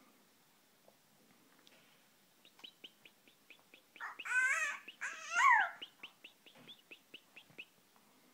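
European goldfinch held in the hand, calling: a quick run of short high chirps, about five a second, broken about halfway by two louder, harsh twittering calls.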